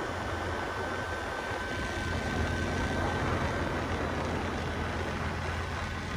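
ATV (quad) engine running steadily, a little louder from about two seconds in.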